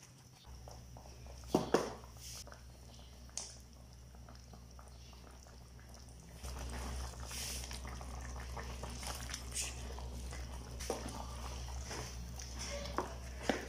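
Wooden spatula stirring chicken adobo in a nonstick pan, with a few sharp knocks against the pan and bubbling liquid, over a low steady hum that gets louder about six seconds in.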